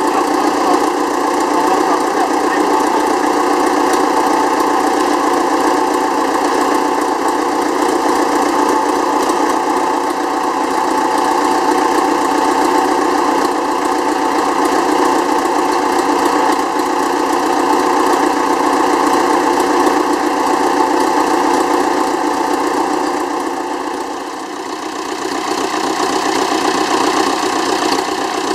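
Ford farm tractor engine idling steadily with an even, knocking beat. It dips briefly in level a few seconds before the end.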